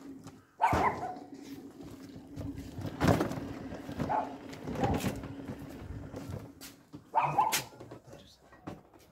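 A dog barking several times, loudest about a second in, again about three seconds in and near the end.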